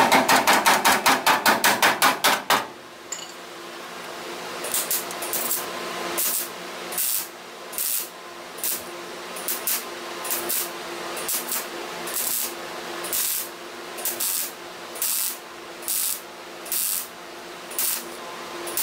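A hammer taps rapidly on a steel patch panel, about five blows a second, for the first two and a half seconds. Then a MIG welder tack-welds the lower A-pillar patch in, in short bursts of under half a second, roughly one a second.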